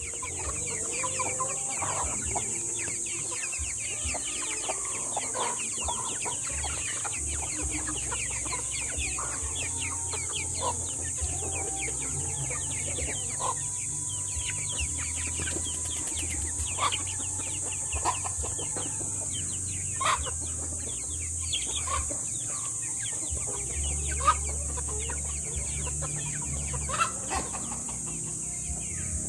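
A flock of silkie chickens clucking and peeping, with many short falling chirps and now and then a louder single call, over a steady high-pitched hiss.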